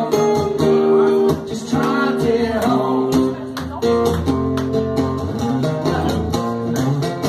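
An acoustic guitar strummed in a steady rhythm while a man sings into a microphone, amplified through a PA speaker in the room.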